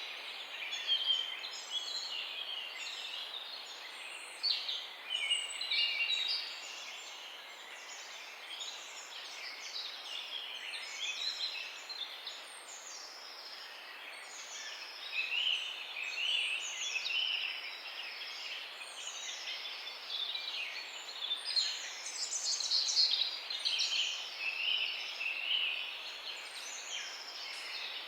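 Many small birds chirping and calling at once, overlapping short chirps and quick down-slurred whistles over a steady outdoor hiss.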